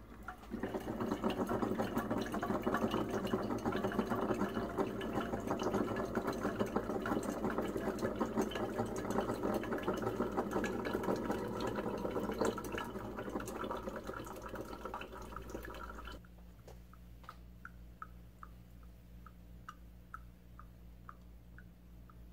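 Coffee maker dispensing a thin stream of dark brew into a stainless steel mug, a steady splashing rush. About sixteen seconds in the stream stops, and single drops fall into the filled mug a little under two a second over a low hum from the machine.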